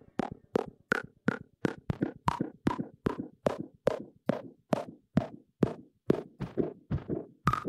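Stripped-down electronic music: a steady pattern of short percussive drum-machine hits, about three a second, each with a brief pitched ring that shifts in pitch from hit to hit.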